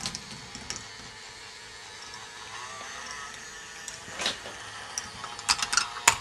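K'nex ball machine running: the plastic lift mechanisms, driven by small electric motors, keep up a steady mechanical whirr while plastic balls click and clatter along the track, with a cluster of sharp clicks near the end.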